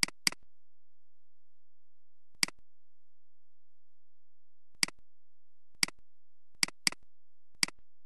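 Computer mouse clicks: eight short sharp clicks spread out, including two quick double-clicks, one at the start and one about two-thirds of the way in.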